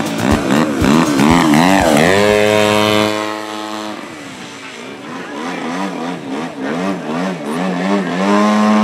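Radio-controlled model airplane's engine running through aerobatic passes, its pitch wavering up and down and then holding steady, fading quieter in the middle and rising again near the end.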